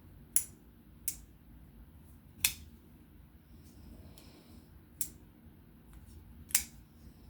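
Five sharp, separate clicks at uneven intervals from small metal parts being handled as a folding pocket knife is put back together.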